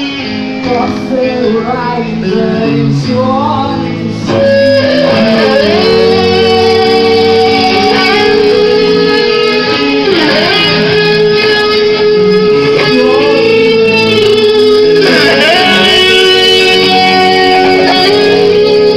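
Background music with plucked guitar and a long held melody line that slides between notes; it becomes fuller and louder about four seconds in.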